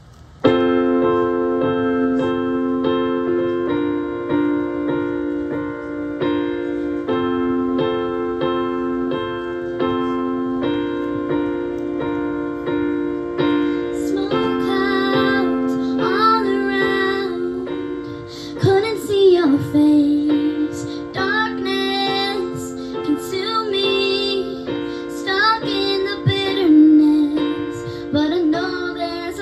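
Keyboard playing held chords that change about every two seconds, starting suddenly about half a second in; from about halfway through, female voices sing a melody over it.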